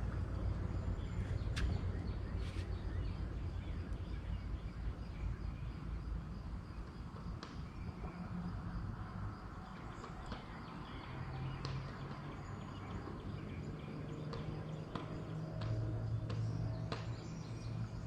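Outdoor fishing ambience: a low rumble of wind on the microphone, with scattered sharp clicks and ticks of handled gear and a faint low steady hum from about eleven seconds in.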